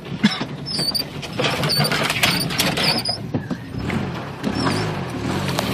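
1987 Toyota 4Runner creaking and rattling as it crawls over a rough wooded trail, with many short knocks and clicks from branches scraping and snapping against the body. The engine runs low underneath, a little stronger in the second half.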